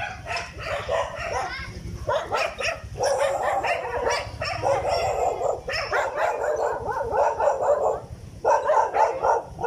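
Dogs barking repeatedly in quick runs, with brief pauses between them.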